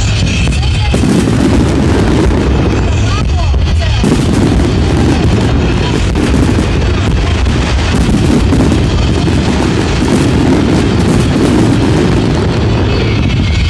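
Fireworks display at full barrage: many overlapping shell bursts booming and popping in quick succession, with a continuous low rumble.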